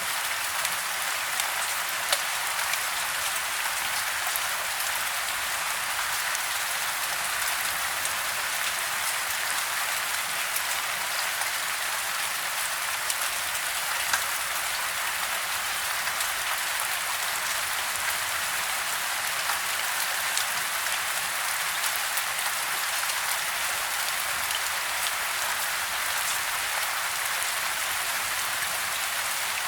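Soft rain falling steadily: a dense, even hiss of rain with scattered sharper ticks of single drops, a couple of them louder.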